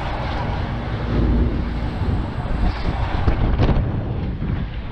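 Wind buffeting the microphone of an on-ride camera as a Trabant fairground ride spins, a steady low rumble with a brief sharp clatter about three and a half seconds in.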